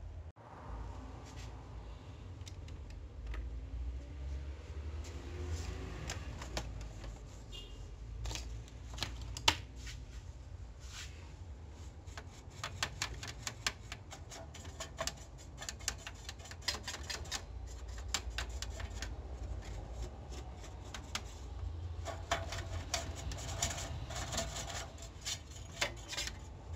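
Irregular clicks and taps of plastic parts being handled inside an open HP LaserJet P1102 laser printer's paper-feed area around the pickup roller. The clicks come sparsely at first, with one sharp click about nine seconds in, then fall into quick runs of ticks in the second half.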